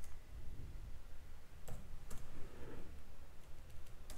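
A few faint, scattered computer keyboard key clicks, about four spread over the few seconds, over a low steady room hum.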